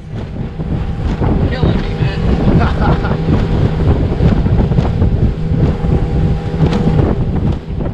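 Strong wind buffeting the microphone in uneven gusts of low rumble, with a faint steady hum underneath.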